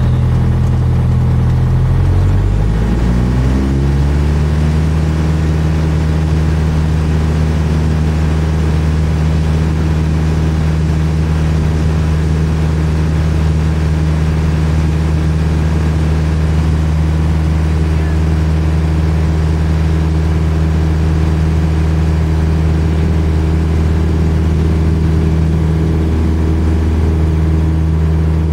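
Cessna 172's piston engine and propeller heard from inside the cockpit, rising in pitch about two to four seconds in as power comes up for the takeoff roll, then running steadily at full power.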